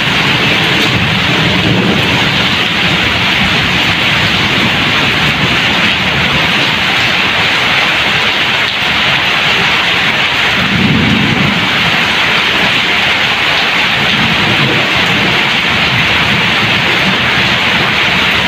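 Heavy monsoon rain falling steadily on garden foliage and ground, a loud, even hiss. Low rumbles come and go beneath it, the strongest about eleven seconds in.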